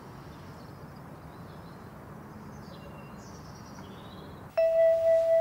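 Low, steady outdoor background noise with a few faint high chirps. Near the end a loud ringing tone at one steady pitch starts suddenly and holds.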